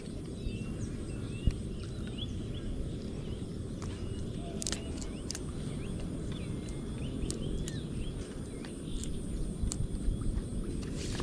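Outdoor ambience: small birds calling with many short chirps that rise and fall, over a steady high-pitched whine and a low rumble of wind or water.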